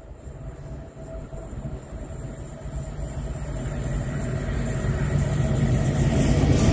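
Class 66 diesel-electric locomotive's EMD two-stroke V12 working at full power (notch 8) with a heavy freight train, approaching and growing steadily louder. A deep engine rumble carries a steady higher tone.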